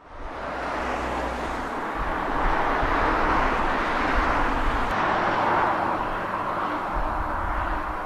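Outdoor wind buffeting the microphone with low rumbles over a steady rushing of ocean surf, cutting in abruptly at the start.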